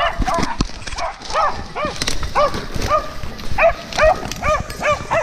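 Hunting dogs barking in a steady run of repeated barks, two to three a second and coming faster in the second half, baying at a wild boar held at bay. Brush and dry leaves crackle underfoot.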